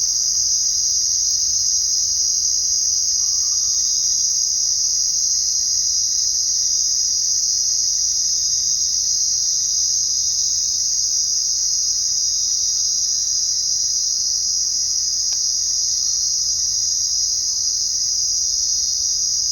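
A chorus of crickets chirping steadily in a dense, unbroken high-pitched trill at night.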